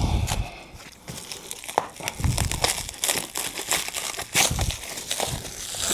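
Packaging being crumpled and torn by hand while unpacking, a run of irregular crinkling and crackling noises.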